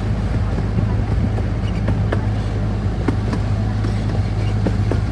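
Miniature railway's diesel-outline locomotive running steadily with a strong low hum while pulling the train, heard from an open passenger car, with scattered light clicks from the moving train.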